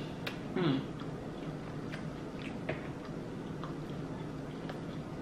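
Close-miked chewing of a crisp waffle: scattered small crunches and wet mouth clicks, with a short low vocal sound a little over half a second in.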